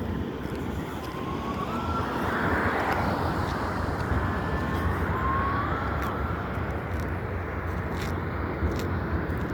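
Faint wailing siren of an unidentified type, its pitch gliding upward twice a few seconds apart, over a steady low rumble.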